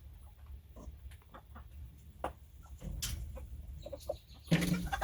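Broody hen clucking on her nest, with scattered short rustles and knocks and a louder burst of sound near the end.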